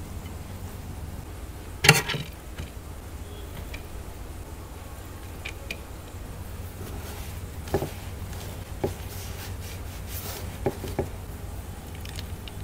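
Kitchen utensil sounds as biryani rice is turned in a steel pan with a spatula and served onto a ceramic plate with a slotted spoon: one sharp knock about two seconds in, then a few softer taps and a short scrape. A steady low hum runs underneath.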